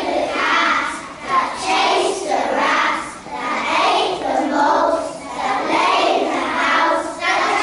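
A group of young children singing together in unison, in short phrases of about a second each.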